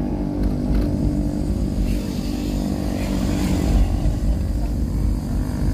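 Motor vehicle running steadily: a constant low engine drone with heavy road rumble.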